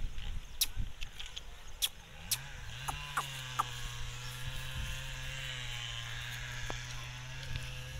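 A small motor starts up about two seconds in, rising briefly in pitch and then holding a steady hum, after a few sharp clicks.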